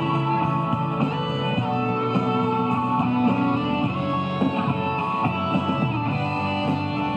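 Instrumental music led by guitar, with sustained notes and no fireworks bangs.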